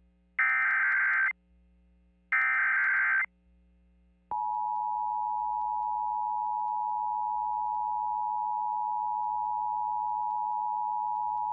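Emergency Alert System tones for a tornado warning. First come two bursts of SAME digital header data, each about a second long. About four seconds in, the steady two-tone EAS attention signal starts and holds.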